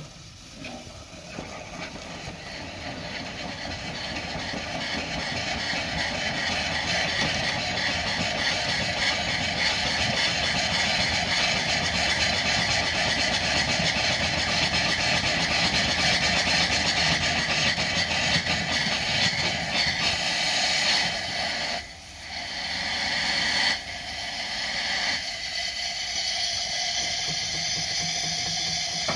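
Duplex steam pump on a Mann steam wagon working to raise the hydraulic tipper body: steady hissing steam exhaust with a fast, even pulse, building over the first several seconds. It dips sharply twice, about 22 and 24 seconds in.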